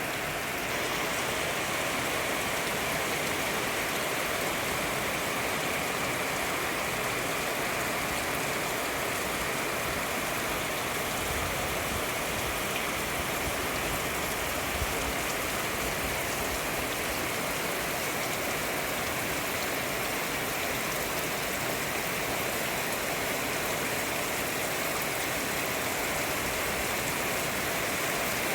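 Steady rain falling, an even hiss that holds throughout.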